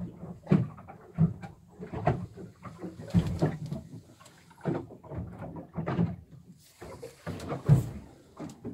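Irregular knocks and thuds of doors and cupboard doors being handled, opened and shut in a small boat cabin, the loudest near the end.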